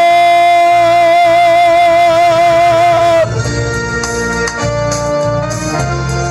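A male tenor holds one long high note with a steady vibrato over keyboard accompaniment; the note ends about three seconds in, and an organ-like keyboard backing carries on alone with a bass line.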